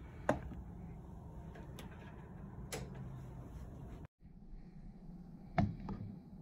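A few light knocks and clicks as a wireless charging pad and a smartphone are handled and set down, over a steady low hum. The sharpest comes about a third of a second in, and a louder double knock comes near the end.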